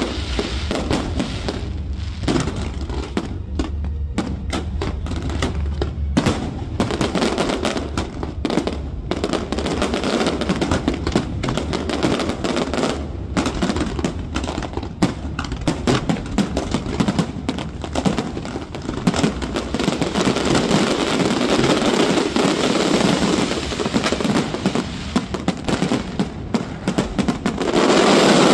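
Fireworks display: a continuous run of rapid bangs and crackling from aerial shells and ground fountains, swelling to a loud barrage near the end.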